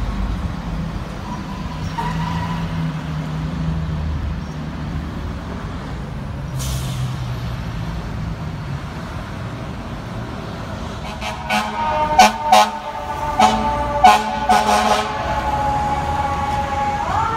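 FDNY fire truck in city traffic: a steady low diesel engine and traffic rumble, then a run of loud air-horn blasts partway through, and a siren starting to rise just before the end.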